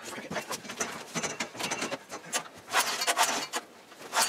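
Irregular scraping, rubbing and knocking noises, a few short rasps, with no engine running.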